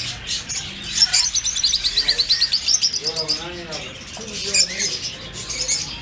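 Caged birds chirping: a fast, evenly paced run of high chirps from about one to three seconds in, then a brief lower call and more scattered high calls.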